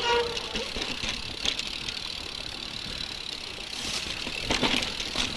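Mountain bike ridden over wet, rocky singletrack: tyres rolling and the bike rattling. Sharper knocks come about a second and a half in and again near the end as it goes over rocks.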